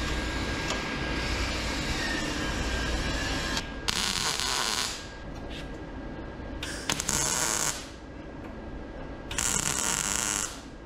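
Yes Welder MP200 MIG welder arcing on steel square tubing in three short welds, each about a second long, with pauses between. Before the first weld there is a steady background noise.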